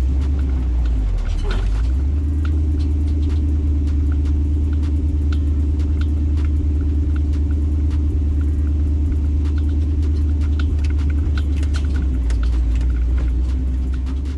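Jeep running steadily along an off-road trail: a continuous low engine drone with scattered knocks and rattles.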